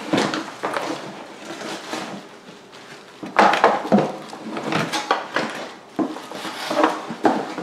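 Irregular rustling and knocking of cardboard and plastic packaging as blender parts are lifted out of their box, loudest about three and a half seconds in.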